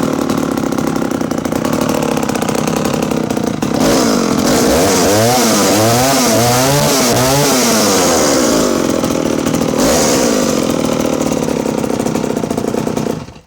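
Danarm 125 Mark II vintage chainsaw's 125cc two-stroke engine running, with the throttle blipped about five times in quick succession in the middle, then cutting off suddenly near the end.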